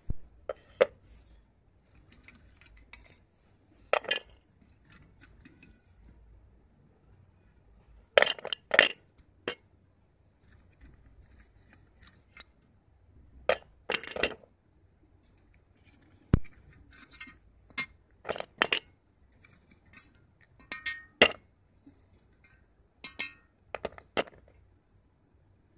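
Wet slate pencils clinking against a steel plate and a steel tumbler as they are lifted out of the water and set down, in scattered clusters of sharp clinks every few seconds.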